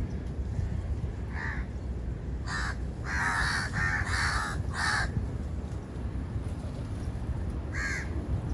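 Crow cawing: a run of harsh caws, several in quick succession in the middle and one more near the end, over a steady low rumble.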